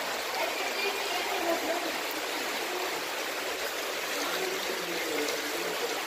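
Shallow stream of water running steadily along the floor channel of a concrete tunnel, a constant rushing trickle.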